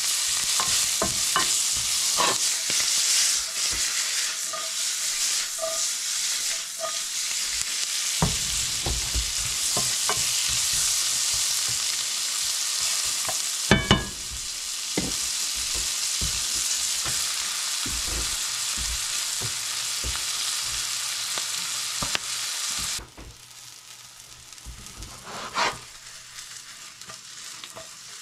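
Food sizzling in hot oil in a frying pan, with utensil clicks and scrapes throughout and a sharper knock about 14 seconds in. About 23 seconds in the sizzle falls away suddenly to a much quieter fry.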